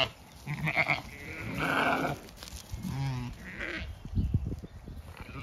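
Zwartbles sheep bleating several times in short, separate calls, some wavering in pitch.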